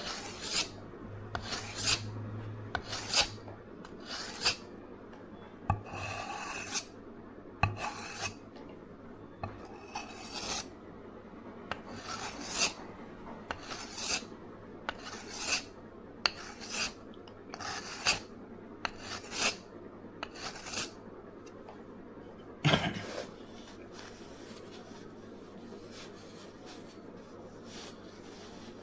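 Victorinox santoku blade being sharpened on a Naniwa Chosera 400 whetstone: steady rasping strokes of steel across the stone, about one a second, setting a new edge. The strokes stop just past two-thirds of the way through, followed by a single sharp knock.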